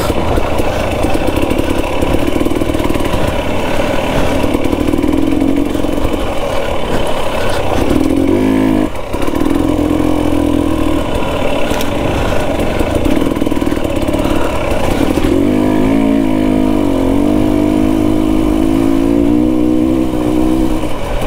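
KTM 250 XC-W TPI two-stroke dirt bike engine running under way on trail, its note rising and falling with the throttle. About nine seconds in the revs drop sharply for a moment, then climb again.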